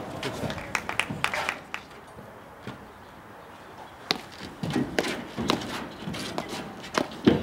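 Platform tennis rally: sharp knocks of paddles striking the ball mixed with players' footsteps thudding and scuffing on the raised court deck. The knocks thin out for a second or two in the middle, and a loud knock about four seconds in starts a busier run of strikes and steps.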